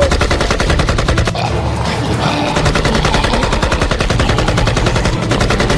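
Loud, rapid rattling: a fast, unbroken run of sharp knocks, like a cartoon sound effect.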